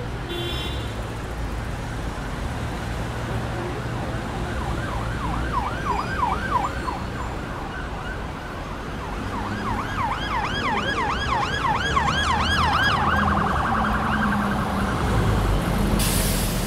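Siren sweeping up and down about three times a second. It comes in about five seconds in, grows louder around ten seconds, then switches to a faster warble, over a steady low traffic rumble. A short burst of noise comes near the end.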